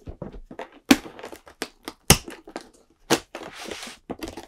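Perforated cardboard door of a box advent calendar being pushed and torn open by hand: three sharp cracks of card about a second apart, then a short papery rustle.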